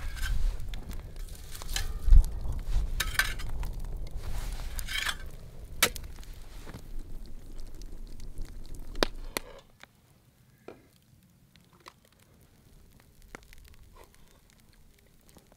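Clinks and scrapes of metal around a cast-iron Dutch oven hung over a campfire, with fire crackle and a low rumble. About nine seconds in it drops to much quieter, with only a few faint clicks.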